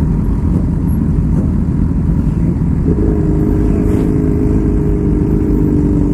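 Sport motorcycles, among them a Suzuki GSX-R and a Yamaha, idling together in a low, continuous rumble. About three seconds in a steadier engine drone joins as a heavy truck passes close by, sinking slightly in pitch.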